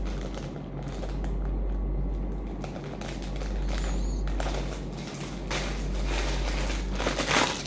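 Handling noise from unpacking a charging cable: light clicks and rustles, then a louder spell of packaging crinkling near the end, over a steady low hum.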